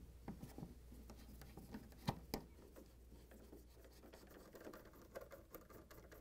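Faint scraping and clicking of a hand nut driver turning screws into a refrigerator's rear access panel, with two sharper clicks a little after two seconds in.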